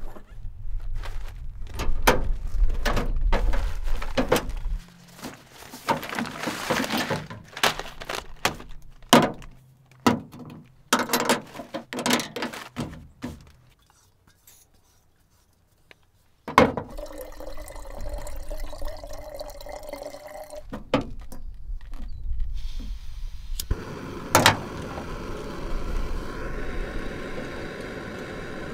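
Clicks, clatter and knocks of camp cooking gear being handled on a metal truck tailgate as a small stove is screwed onto an MSR gas canister. After a brief lull about halfway through, a sharp click starts a steady hiss, with one more sharp click a few seconds later.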